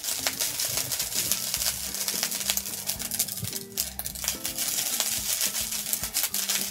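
Cooked rice sizzling and crackling in a very hot cast-iron skillet as it is spooned in with a rice paddle.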